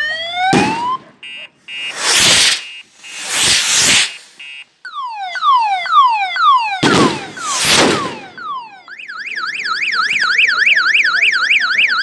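An electronic vehicle siren sounds through sweeping whoops that fall in pitch, then switches to a fast up-and-down warble about three-quarters of the way through. Five or six loud bangs of firecrackers or rockets break over it in the first two-thirds.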